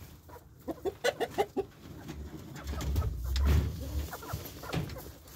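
Chickens clucking, with a quick run of short clucks about a second in. Near the middle comes a low rumble, the loudest sound here.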